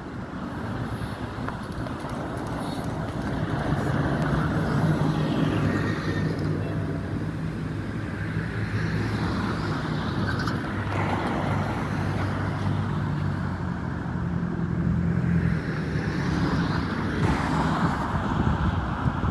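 Road traffic: several cars passing close by, each one a swell of tyre and engine noise, over the steady low hum of engines including city buses.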